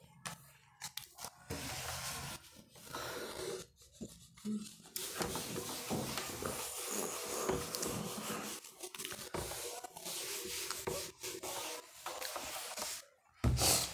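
Whiteboard duster wiping marker writing off a whiteboard in repeated scrubbing strokes, becoming continuous from about five seconds in.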